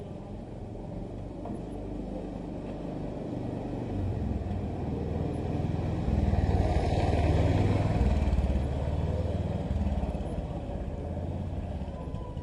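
A motor vehicle passing nearby: a low engine rumble swells over several seconds to a peak in the middle, then fades toward the end.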